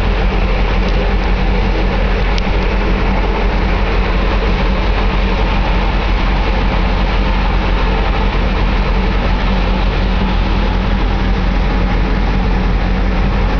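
Steady low drone of a ship's engines and machinery under an even rush of wind and sea, with no break or change.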